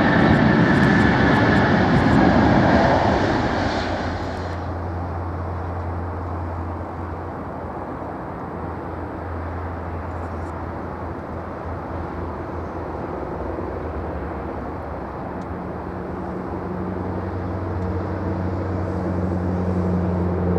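Jet airliner engines: loud noise with a high whine that cuts off abruptly about four seconds in, followed by a steady low drone that grows louder toward the end.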